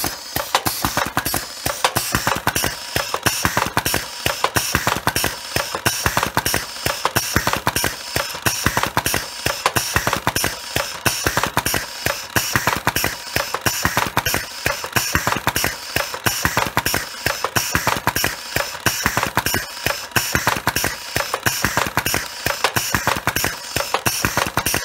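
COBRA automatic pneumatic cigarette tube filling machine running, a fast, even clatter of clicks and knocks as it cycles, stuffing tobacco into empty tubes and pushing out filled cigarettes.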